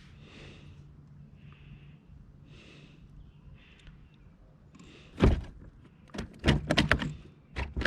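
Faint rustling, then from about five seconds in a quick run of loud, hard knocks and clattering.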